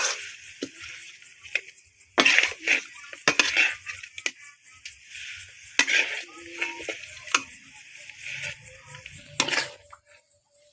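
Food sizzling as it is stirred in a cooking pan, with a utensil knocking and clinking against the pan several times.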